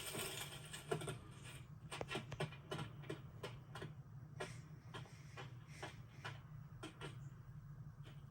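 A run of irregular light clicks and taps, a few a second, over a steady low hum.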